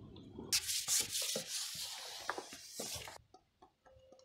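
Carbon fishing pole being slid out across its pole rest: a scraping hiss with small knocks that starts about half a second in and stops abruptly after about three seconds.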